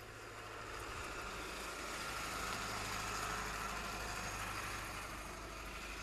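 Snowplow truck's engine running as it drives past: a low steady hum under a broad hiss that grows louder to about halfway, then fades.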